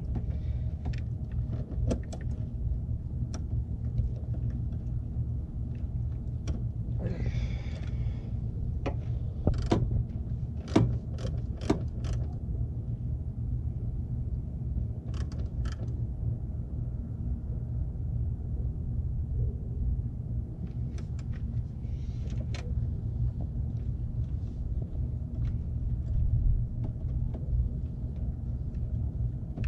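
A 2000 Toyota 4Runner's engine idling steadily under the open hood, with scattered sharp clicks and knocks from a ratchet wrench working the headlight aim adjusters, several in quick succession about ten seconds in.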